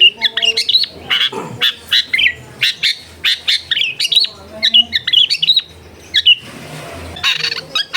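Long-tailed shrike (cendet) singing: a fast run of sharp chirps and quick whistled sweeps, pausing briefly before breaking into harsh, buzzy chatter near the end.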